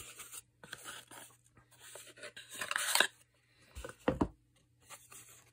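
Cardboard watch box and its foam insert being handled and shuffled, in uneven bursts of rustling and scraping, louder about three seconds in.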